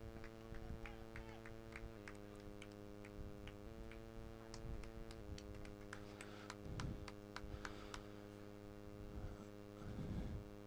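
Faint, steady electrical hum made of several level tones, shifting slightly in pitch twice, with scattered faint ticks and clicks.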